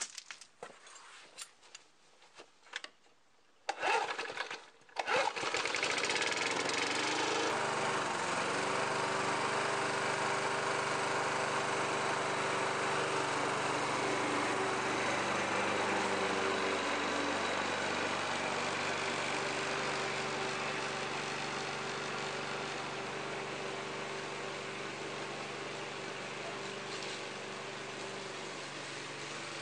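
Petrol lawn mower engine starting with two loud bursts about four and five seconds in, then running steadily at a constant speed. It grows gradually fainter toward the end as the mower moves away.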